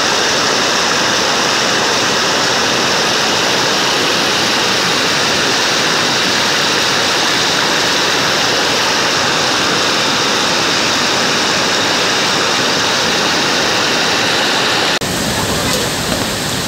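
Floodwater rushing in a fast, turbulent torrent: a steady, loud rush of water. About a second before the end it cuts abruptly to another stretch of running water with a deeper rumble.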